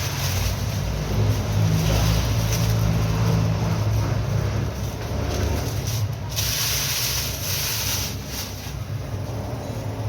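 Motor vehicle running, a steady low rumble, with a burst of hiss about six seconds in.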